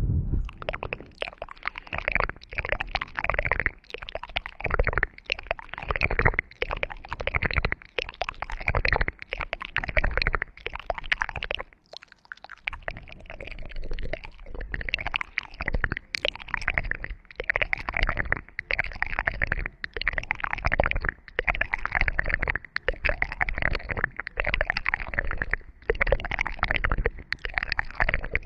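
Close-miked ASMR trigger sounds: repeated strokes on the microphone, about one to two a second, each with a low rumble under it.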